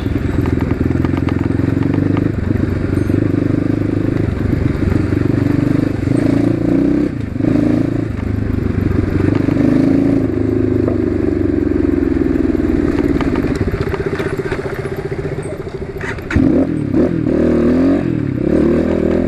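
Asian Beast 250 dirt bike's engine running loud under way, the exhaust note steady with small throttle changes; near the end it rises and falls as the rider works the throttle.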